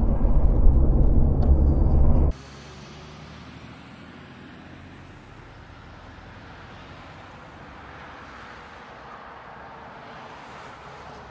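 Car driving on a highway past lorries: a loud, low rumble of road and engine noise inside the cabin. It cuts off suddenly about two seconds in and gives way to a much quieter steady hiss.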